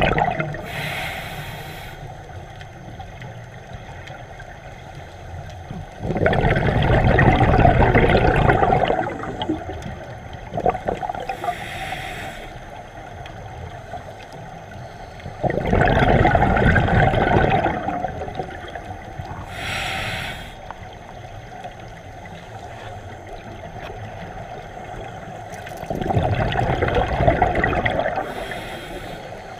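A scuba diver breathing through a regulator underwater: a short hiss on each inhale, then a loud rush of exhaust bubbles on each exhale, three breaths about ten seconds apart.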